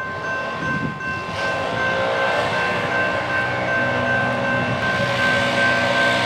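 Approaching diesel freight train led by a GE ES44AC locomotive, its engine rumble growing gradually louder, with a steady high tone held throughout.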